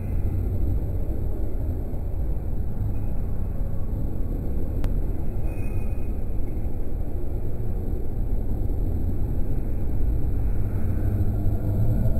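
Steady low rumble of background noise in an aquarium gallery, heaviest in the bass, with a faint hiss above it.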